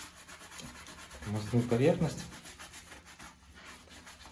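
Sponge with soapy degreaser scrubbing the braking surface of a bicycle disc brake rotor: a steady rubbing and wiping sound as the grease that causes brake squeal is cleaned off.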